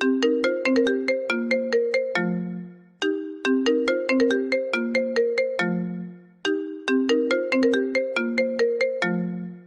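iPhone ringtone: a short melody of quick, bell-like notes that repeats about every three and a half seconds, three times over.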